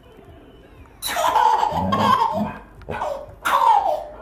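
A baby laughing hard in two bursts, the first starting about a second in and the second near the end.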